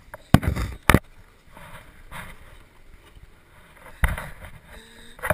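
Sharp knocks and thumps, two close together about a third of a second and one second in and another about four seconds in, over a faint rustling, wind-like noise on the microphone.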